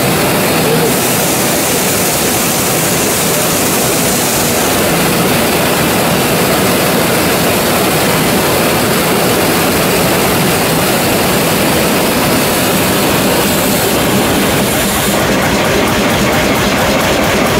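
1925 Gardner 4T5 hot-bulb oil engine running steadily and loudly.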